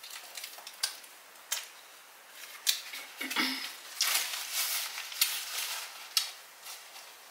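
Close-miked chewing of a mouthful of Italian sub sandwich, with scattered sharp wet mouth clicks. About four seconds in, a paper napkin rustles against the mouth.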